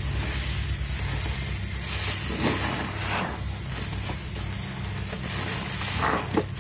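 Soap-soaked foam sponges, cut from mattress foam, squelching as rubber-gloved hands squeeze them, with crackling suds. There are louder wet squishes about two to three seconds in and again near the end, over a steady low hum.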